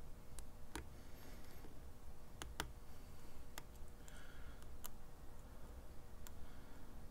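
Lock pick and tension wrench working the pins of a 5-pin BEST SFIC padlock core: a few sharp, irregularly spaced clicks as pins set or drop, with faint scraping of the pick between them.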